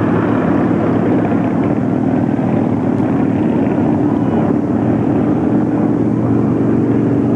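A loud, steady mechanical drone, like an engine running, with faint voices in the background.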